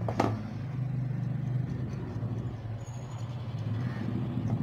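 A steady low engine hum, with one sharp click about a quarter of a second in.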